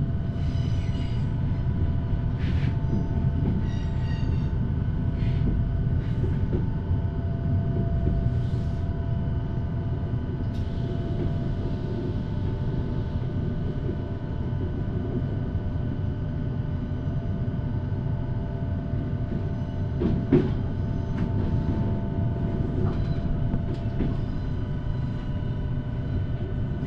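Passenger train running, heard from inside the carriage: a steady low rumble with a faint steady whine. Several brief high squeals come in the first few seconds, and there is one sharp knock about twenty seconds in.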